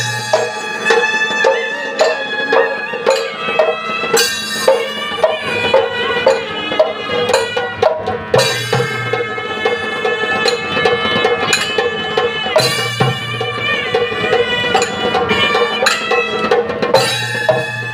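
Traditional folk band music: reed pipes play a sustained melody over a steady drone, while a drum beats time in an eight-beat Adi tala cycle.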